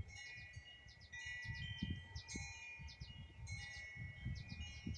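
Wind chimes ringing, several metal tones struck again and again at irregular moments, with wind rumbling on the microphone underneath.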